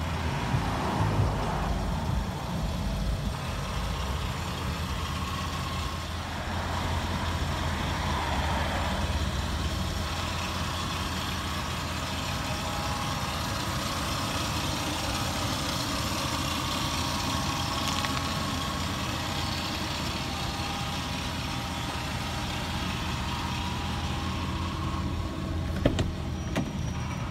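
A truck engine idling steadily, an even low hum throughout. A few sharp clicks sound near the end.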